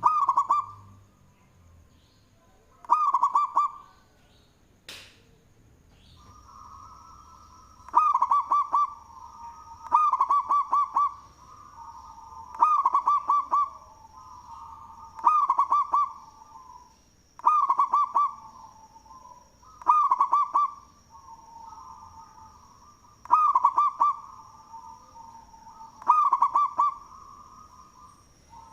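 Zebra dove (perkutut) cooing: about ten loud bubbling coo phrases, one every two to three seconds, with softer cooing between them. A faint steady high-pitched tone runs underneath, and a single sharp click comes about five seconds in.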